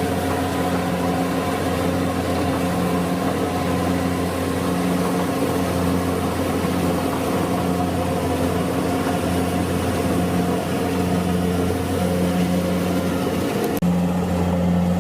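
Kubota DC-70 combine harvester's diesel engine running steadily under harvesting load, with a regular pulsing about once a second and a brief break near the end.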